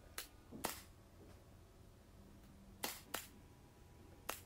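Milwaukee cordless brad nailer firing five times, each shot a short sharp snap: two close together just after the start, a pair about three seconds in, and one more near the end.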